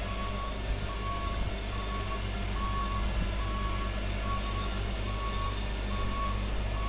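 Truck's reversing alarm beeping evenly, a little more than one beep a second, over the steady low drone of its running engine as it backs up.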